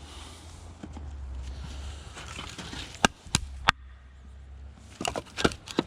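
Split hardwood firewood knocking together as pieces are set on a stack: a few sharp wooden clunks, two about three seconds in and a quick cluster near the end.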